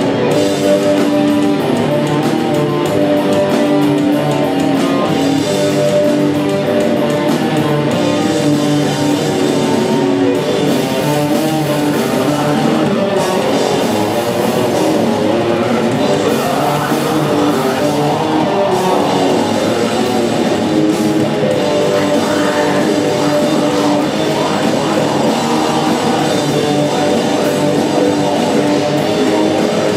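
Live heavy metal band playing loud and without a break: electric guitars, bass and drum kit, with the singer's vocals over them.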